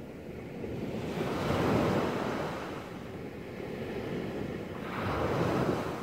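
Small waves breaking on a sandy beach: the surf swells and crashes about a second and a half in, washes back, and breaks again near the end.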